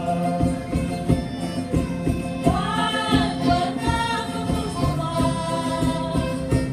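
Madeiran folk group performing: a group of voices singing in unison over strummed string instruments and a steady jingling percussion beat.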